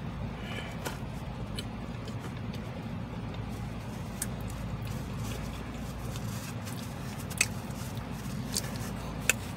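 Steady low hum of an idling car, heard from inside the cabin, with scattered small clicks from chewing and handling a paper napkin.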